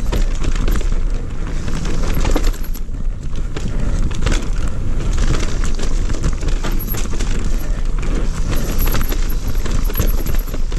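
Electric mountain bike descending a dirt singletrack: tyres rolling and skidding over roots and ruts, the bike rattling and knocking over the bumps, with a constant deep rumble of wind buffeting the microphone.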